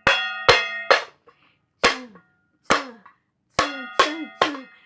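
Metal pot lids struck, clanging about eight times in an uneven rhythm, each clang ringing briefly. Loud.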